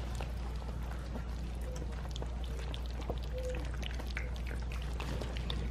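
Several three-week-old puppies lapping and smacking at wet mush in a steel pan, a string of small wet clicks and slurps. A short faint squeak comes about three and a half seconds in, over a steady low hum.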